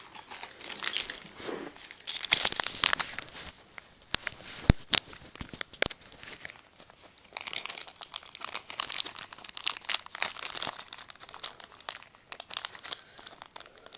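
Crinkling and rustling of a packet being handled, in irregular bursts, with a few sharp clicks around the middle.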